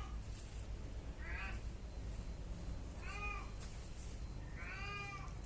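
A young goat kid bleating three times, high-pitched calls about every second and a half, each rising and then falling in pitch.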